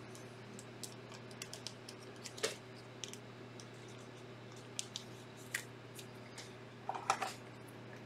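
Scattered light clicks, taps and rustles of hands handling things on a tabletop, a little louder about two and a half seconds in and in a short cluster near the end, over a steady low hum.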